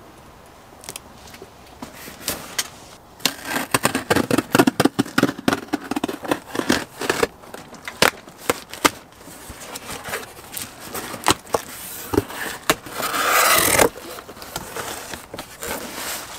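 Packing tape being peeled and ripped off a cardboard shipping box: a rapid run of crackles and scrapes of tape and cardboard, with one longer tearing rip near the end.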